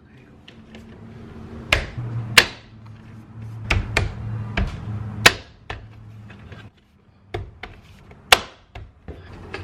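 Plastic trim covers being pressed and tapped into place on a car roof rail: a string of sharp, irregular clicks and knocks, a few of them much louder than the rest.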